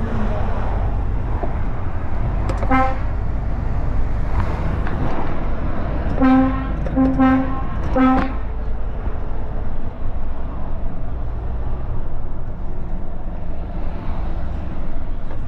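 Truck horn sounding one short toot, then three short toots in quick succession a few seconds later, a greeting signal to someone at the roadside. Under it runs the steady low drone of the truck's engine and the road.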